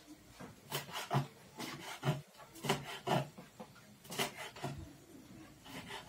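Knife cutting rolled pasta dough on a wooden board: a series of irregular short knocks.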